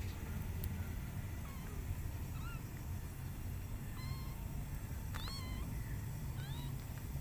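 Newborn kittens mewing: about five short, thin, high-pitched mews, the loudest about five seconds in, over a steady low rumble.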